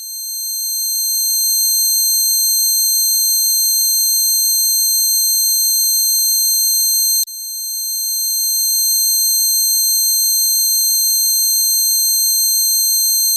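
Electronic tinnitus-relief tone: several steady high-pitched tones sounding together over a faint warbling tone. It swells up at the start, breaks off with a click about seven seconds in, and swells back up over a couple of seconds as the sound restarts.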